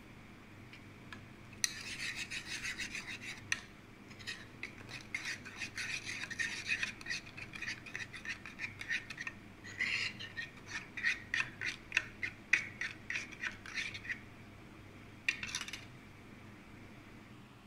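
A metal teaspoon stirring coffee and sugar in a stainless steel cezve, scraping and clinking against the pot's bottom and sides in quick strokes, about three or four a second, with a short final scrape near the end.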